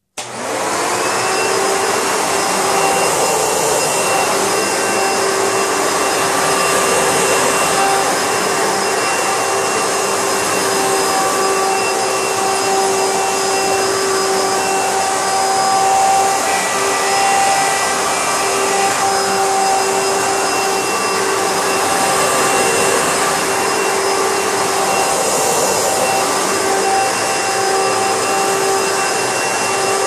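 Hoover Bagless Twin Chamber direct-air upright vacuum cleaner switched on, coming up to speed within a second, then running steadily on low carpet. A steady motor whine sits over the rush of air.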